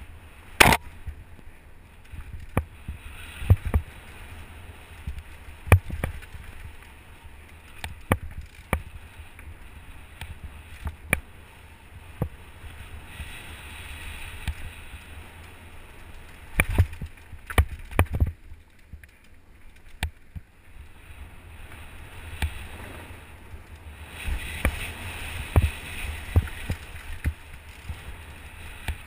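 Mountain bike riding fast down a dirt forest trail, heard from a camera mounted on the rider or bike: a steady rumble of tyres on dirt, broken by frequent sharp, irregular clacks and knocks as the bike rattles over bumps.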